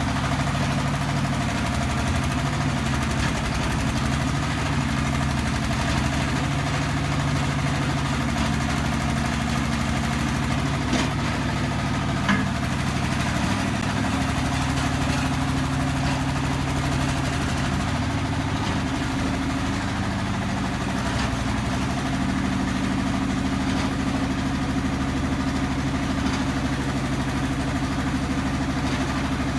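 Self-loading concrete mixer's engine running steadily at idle, with one short click about twelve seconds in.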